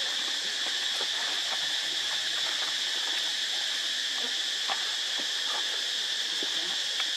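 Steady high-pitched drone of a forest insect chorus, with a few faint clicks scattered through it.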